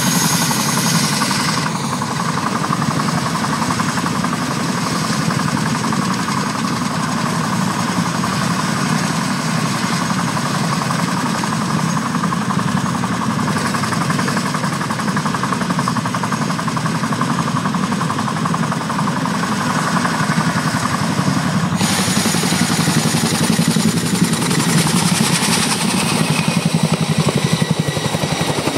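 Boeing CH-47 Chinook tandem-rotor helicopter running on the ground, a steady rapid rotor beat with a thin high turbine whine. About three-quarters of the way in the sound turns brighter, then grows louder as power comes up and it lifts off.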